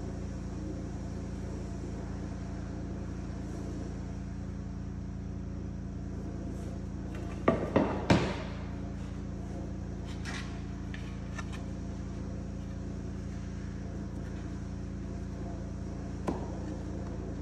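A steady low machine hum, with a quick cluster of sharp knocks about halfway through and a single tap near the end.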